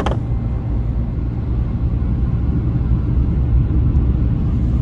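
Steady low road rumble inside a moving car: engine and tyre noise at cruising speed.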